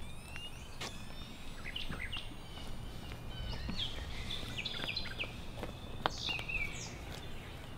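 Outdoor ambience: a steady low background hum with songbirds chirping in short calls throughout.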